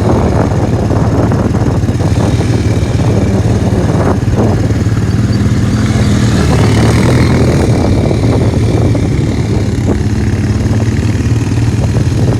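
ATV engine running steadily while riding, its pitch rising a little midway.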